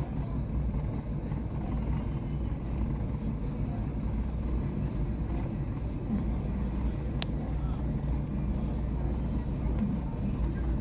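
Chevrolet Aveo engine idling roughly, with an uneven, unsteady beat. There is a single sharp click about seven seconds in.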